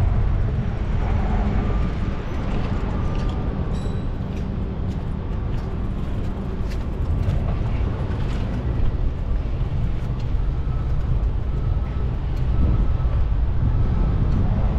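Steady low rumble of street noise heard from a moving bicycle, with traffic and wind.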